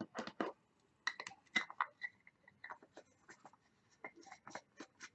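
Quiet, irregular small clicks and taps of makeup containers and tools being handled and set down.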